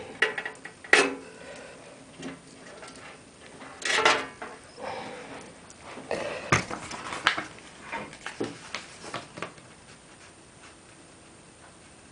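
Handling noises from PC assembly: light clicks, taps and knocks of plastic and metal parts and cables, with a longer rustle about four seconds in and a sharp click about two and a half seconds later.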